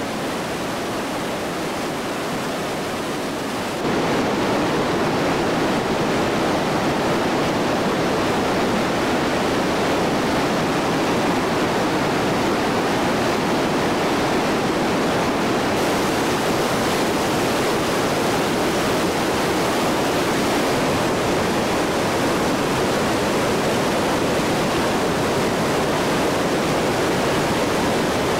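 The steady rush of the Iguazu Falls, a dense, even noise of large waterfalls plunging into the river, which gets louder about four seconds in.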